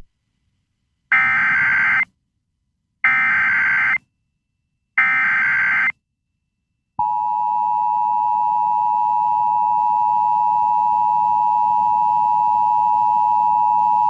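Emergency Alert System SAME header: three bursts of digital data tones, each about a second long and a second apart, announcing a new alert. About seven seconds in, the EAS attention signal starts, a steady two-tone sound (853 and 960 Hz) that comes just before the spoken hazardous materials warning.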